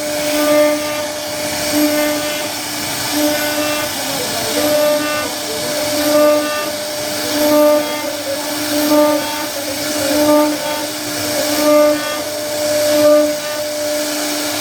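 CNC router spindle running with a steady whine as the bit carves wood, swelling louder about every second and a half as the tool moves through its passes.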